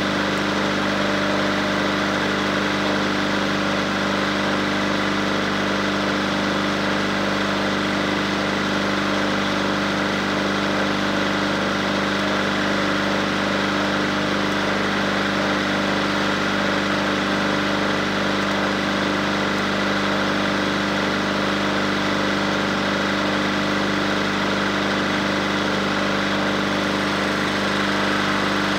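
Small crawler dozer's engine idling steadily, with an even, unchanging hum.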